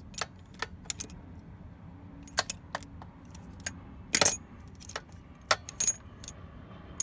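Steel socket extensions clinking and knocking against each other and the toolbox drawer as they are handled: scattered sharp metallic clicks with a short ring, the loudest cluster about four seconds in.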